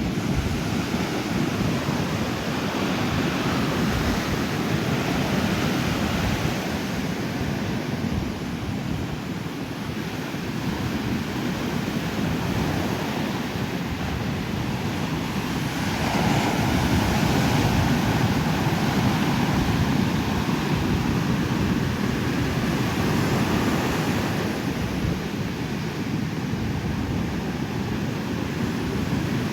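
Ocean surf breaking on a beach: a continuous wash of waves that swells and eases every several seconds, with some wind buffeting the microphone.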